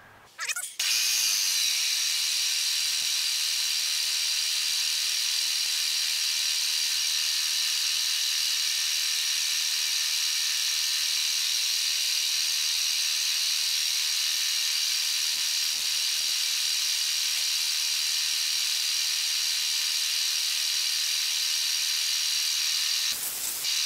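Milling machine plunging a 3/8-inch four-flute carbide end mill into 316 stainless steel plate under a coolant mist, a loud steady hiss that starts about a second in and cuts off near the end.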